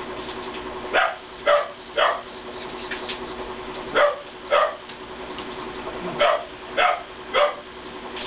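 Dog barking eight times in quick runs of three, two and three, about half a second apart.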